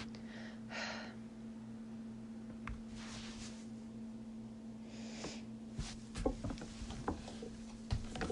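A person getting up from a seat and sitting back down. Three soft rustles of clothing and movement come first, then a run of creaks and light knocks from the seat in the last couple of seconds, over a steady low electrical hum.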